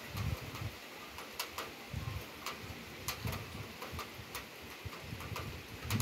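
Scattered water drops ticking irregularly, a couple of sharp clicks a second, over low gusts of wind rumbling on the microphone during a heavy evening rain shower with downdraft wind.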